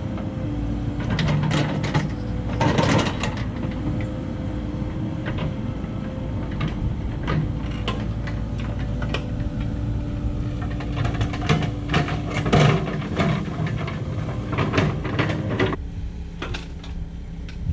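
Cat 308 excavator's diesel engine running under load, with repeated knocks, clanks and scraping as the machine works. The engine note changes and drops near the end.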